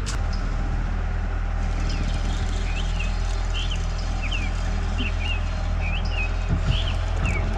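A small bird chirping over and over, short up-and-down chirps about twice a second, over a steady low rumble. A couple of soft thumps near the end.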